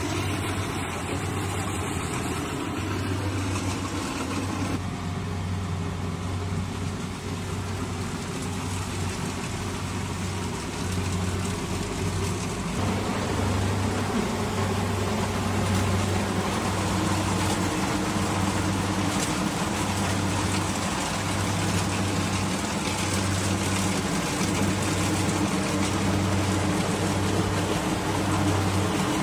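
Rice combine harvester running steadily as it cuts through the field, a continuous engine hum.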